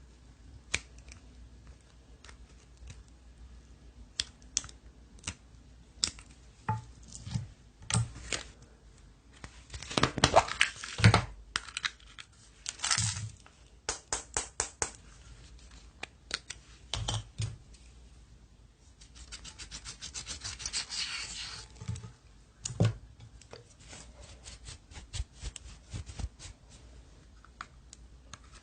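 Slime being handled close up: an uneven run of sharp clicks, pops and crackles, with a stretch of dense fast crackling about two-thirds of the way through.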